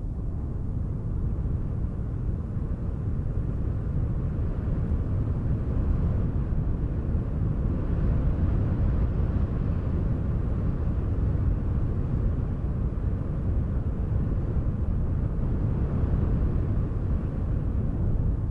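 Wind blowing as a steady low rumbling whoosh that swells gently through the middle and eases again, with no distinct events.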